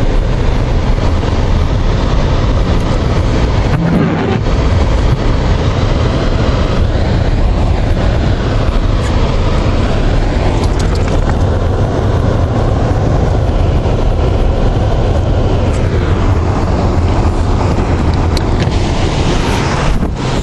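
Loud, steady rumble of a vehicle driving, with wind noise on the microphone.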